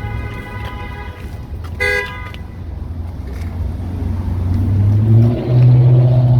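Car horn: a held tone, then a short, louder honk about two seconds in. After that, a vehicle engine hums at a low pitch and grows steadily louder as it comes close.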